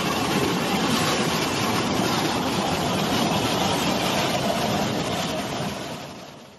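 Rushing floodwater of a swollen, muddy river: a steady, loud rush of churning water, fading out near the end.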